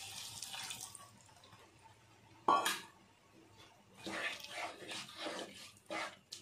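Tamarind water poured into a pan of sautéed bitter gourd, onion and tomato, the pouring tailing off within the first second. A sharp knock about two and a half seconds in, then a spatula stirring through the wet mixture in a few scraping strokes against the pan.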